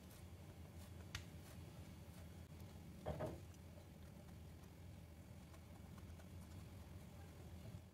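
Near silence: faint low room hum with a few soft ticks and one brief soft scrape about three seconds in.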